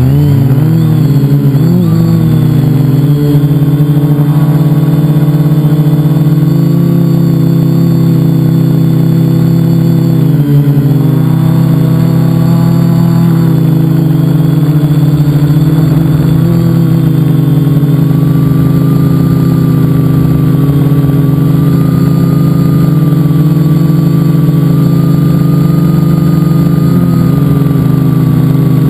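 Multicopter's electric motors and propellers spinning, heard up close from a camera mounted on the craft. It makes a loud, steady buzzing drone of several pitches together, which shifts slightly now and then.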